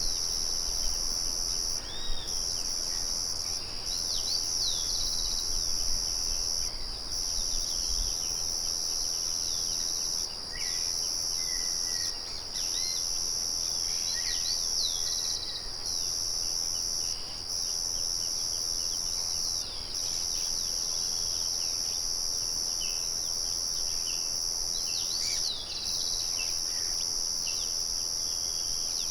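Crickets trilling in a continuous high chorus that drops out briefly now and then, with birds chirping and calling in short bits over it. A low rumble sits under them for the first eight seconds or so.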